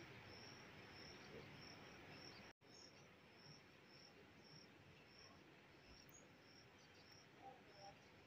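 Near silence: oil sizzling very faintly in a kadai as a stuffed flatbread deep-fries, with a faint high-pitched chirp repeating about twice a second.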